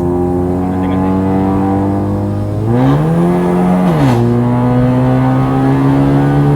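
Honda Civic FD's four-cylinder engine, running an ECU remap tuned for pops and bangs, runs steadily. About three seconds in the revs rise and hold for about a second, then fall quickly with a short crackle as they drop.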